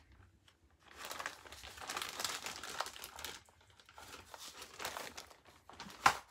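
Small plastic baggies of diamond-painting drills crinkling and rustling as they are sorted through by hand, loudest in the first half, with one sharp click near the end.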